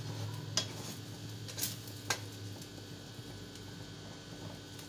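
Stir-frying rice noodles in a pan: a utensil stirring and tapping against the pan, with a few light clicks in the first half over a faint steady sizzle.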